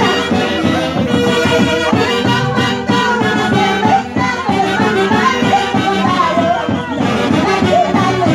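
Live Andean orchestra playing loud through the stage PA: saxophones and clarinets carrying the melody over a steady drum beat.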